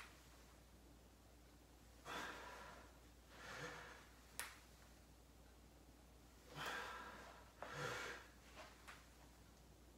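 A person breathing audibly while holding an exercise position: four breaths, each about half a second long, spaced a second or more apart, with a single sharp click about four and a half seconds in.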